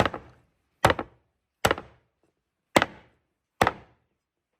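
A heavy knife chopping through a cured pig's trotter: five hard strokes, roughly one a second.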